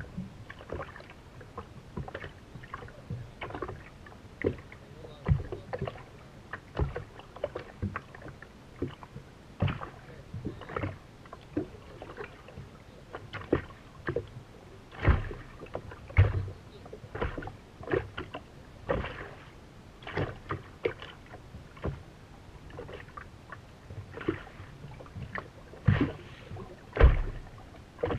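Small waves slapping irregularly against the hull of a race boat drifting with its engine silent, with a few heavier thumps.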